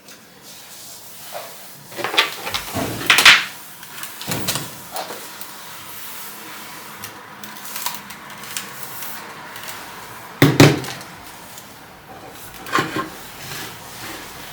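Household knocks and clatter, like cupboard doors and objects being handled: a cluster of sharp bumps about two to three seconds in, another near four seconds, a loud knock at about ten and a half seconds and a smaller one near thirteen, with lighter clicks between over a faint steady hiss.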